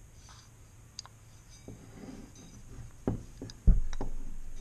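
Metal garage door opener parts, the drive-gear bearing plate and its shaft, being handled: light clicks and rattling, then two knocks and a loud low thump about three and a half seconds in as they knock against the wooden workbench.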